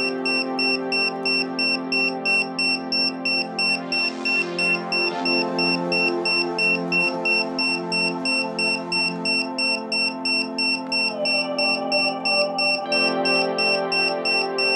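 Piezo buzzer on an Arduino earthquake detector beeping in a rapid, evenly spaced high-pitched pattern: the alarm has tripped because the board's accelerometer is sensing shaking. Background music with held chords plays underneath.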